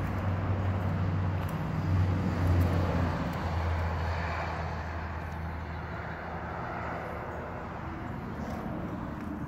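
A motor vehicle's engine with road noise, a steady low hum that swells about two to three seconds in and then slowly fades.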